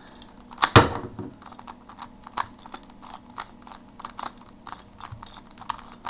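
Rubik's Cube being scrambled: its plastic layers are turned quickly by hand, giving a run of fast, irregular clicks and clacks, with one louder knock under a second in.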